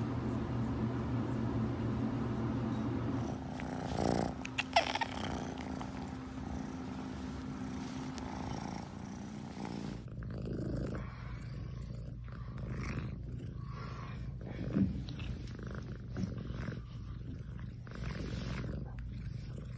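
Tabby cats purring: a steady low rumble, with a few sharp clicks about four to five seconds in.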